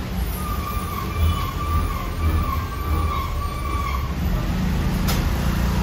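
Road traffic rumbling, with a high wavering tone held for about three and a half seconds and a single sharp click near the end.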